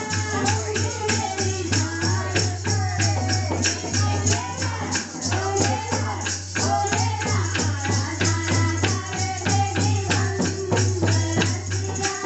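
Hindu devotional kirtan music for the goddess: a sung melody over a fast, steady jingling beat of tambourine-like percussion, about four to five strokes a second.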